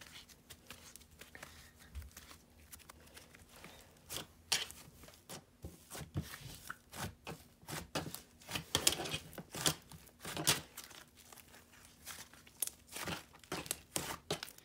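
Thick bread-and-clay slime being kneaded, squeezed and pulled apart by hand, giving quiet, irregular crackles and tearing squishes that come thicker after the first few seconds.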